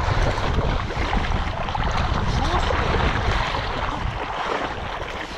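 Wind rumbling on the microphone over rushing, splashing river water, loud and steady and easing slightly near the end.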